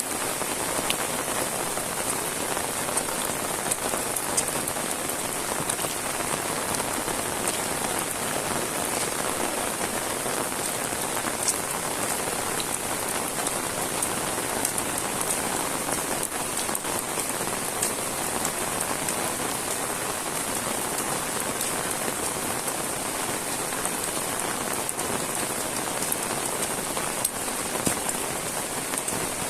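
Heavy rain falling steadily: a dense, even hiss with scattered sharp drop impacts.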